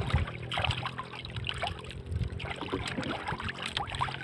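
Sea water lapping and sloshing in irregular splashes against the hull and outrigger of a small outrigger canoe.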